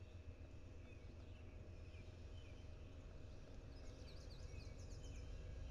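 Small birds chirping faintly over a steady low rumble, with a quick run of high chirps about four seconds in.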